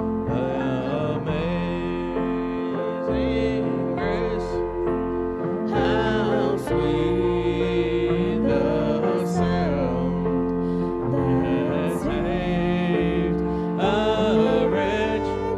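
Gospel music: a singing voice over sustained keyboard chords and a steady bass line.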